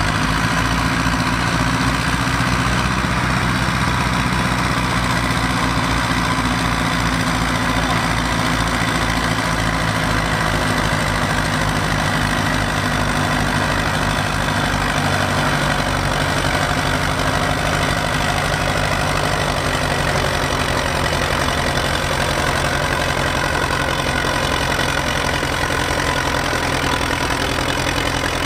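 Two vintage Zetor tractor diesel engines running hard under load in a tractor-pulling contest, a steady low chugging whose pace shifts about halfway through.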